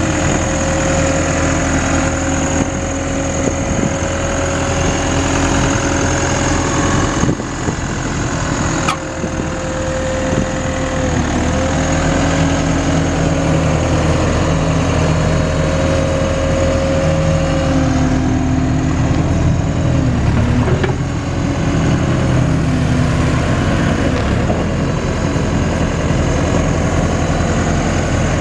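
Case 580 Super M Series 2 backhoe's diesel engine running steadily, with a whining tone that wavers and dips in pitch now and then. There are two sharp clicks about eight seconds in.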